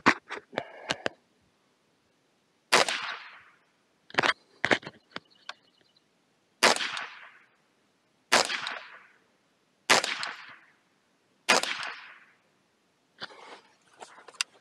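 A Ruger 10/22 .22 rifle fires a few quick shots at the start. It then fires about six single shots, one every second and a half to two seconds, each with a short echo.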